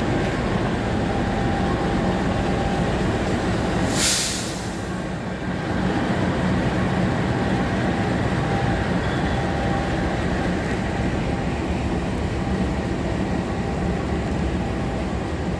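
Train running by on the rails with a steady, loud rumble of wheels and motors; a short burst of hiss about four seconds in.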